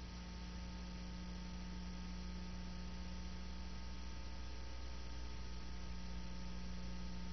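Steady electrical hum with a layer of hiss and no other sound.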